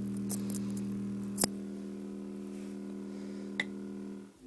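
1970 Fisher loudspeaker's woofer playing a steady 40 Hz test tone, heard mostly through its overtones as a low hum. Two short clicks come about a second and a half and three and a half seconds in, and the tone stops just before the end.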